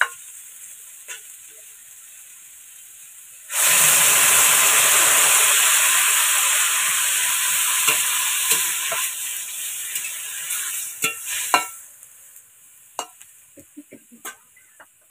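Vegetables frying in a steel wok, then water poured into the hot pan about three and a half seconds in: a sudden loud hissing sizzle that slowly dies down while a metal spatula stirs the pan. A few sharp spatula clicks against the pan near the end.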